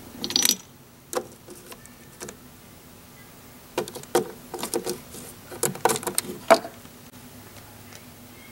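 Small clicks and knocks of a plastic Littlest Pet Shop figure being handled against a miniature dollhouse toilet and floor: a cluster at the start, a few single taps, then a busier run of knocks between about four and six and a half seconds in, over a faint steady hum.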